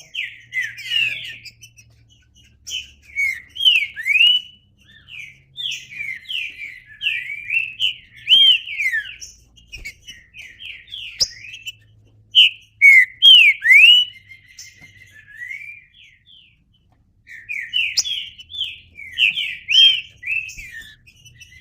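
Green-winged saltator (trinca-ferro) singing: repeated phrases of short, clear whistled notes sliding up and down, with a pause of a second or two about three-quarters through.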